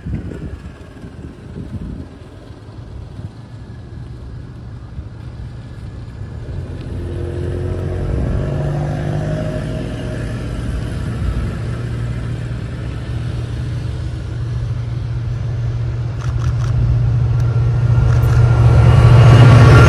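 Chinese-built CRRC Qishuyan diesel-electric locomotive hauling a passenger train, its engine's low, steady drone growing louder as it approaches, with a few clicks near the end.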